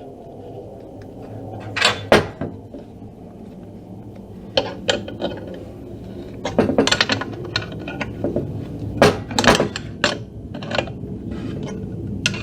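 Metal tools clinking and clattering as they are handled, a dozen or so sharp clicks and knocks, over a steady low hum.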